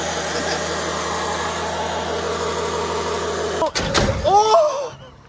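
Car engine running steadily with bolts poured in as its oil. About three and a half seconds in, a sudden loud clatter ends the steady running, followed by a short yell.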